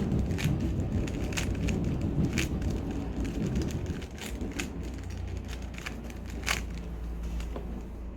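Rubik's cube being turned by hand: scattered sharp plastic clicks as its layers snap round, amid rustling handling noise, over a low steady hum.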